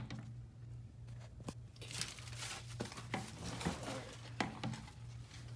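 Rustling and several light knocks from handling and moving about while working under the car, over a steady low hum.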